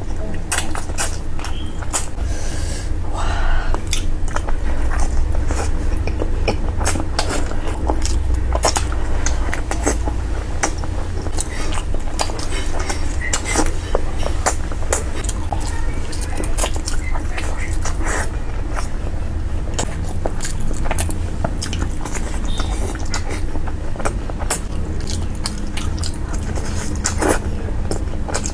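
Close-miked chewing and mouth sounds of a person eating curry: frequent irregular wet clicks and smacks, over a steady low hum.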